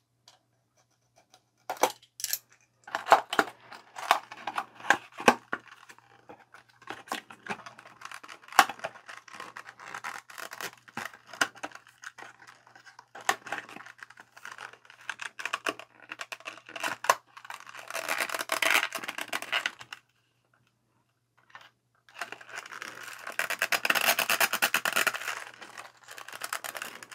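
A small cardboard package being slit open with a utility knife and its card sleeve pulled apart: scattered clicks and scrapes of card, with two longer stretches of tearing, one about 18 seconds in and a longer one near the end.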